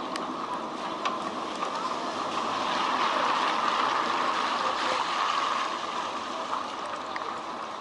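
Heavy typhoon rain on a wet city street: a steady hiss that swells in the middle and eases again.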